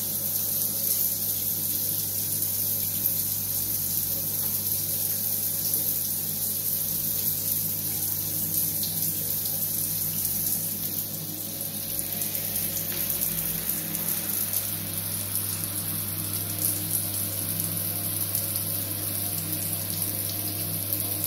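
Shower spray running steadily, water hissing down onto a tiled shower floor and a wet dog.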